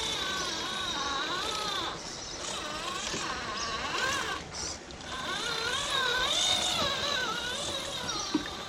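The electric motor and drivetrain of a Yikong G-Wagon scale RC crawler whining, its pitch rising and falling as the throttle is worked, with a steady high whine over it. The sound drops away briefly just before the middle, then picks up again.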